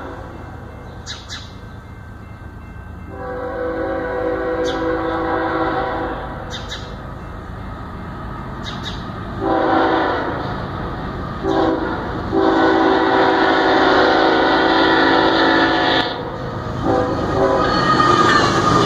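A diesel freight locomotive's air horn sounds the grade-crossing signal as the train approaches: long, long, short, long. Near the end the lead locomotive passes close, with loud engine noise and wheel clatter.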